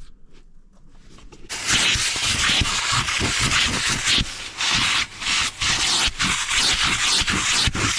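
A car wheel being deep-cleaned: a loud rushing hiss starts suddenly about a second and a half in and runs on unevenly, with brief dips.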